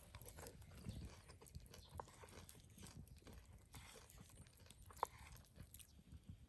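Near silence with faint, scattered small clicks and crackles, and one sharper click about five seconds in.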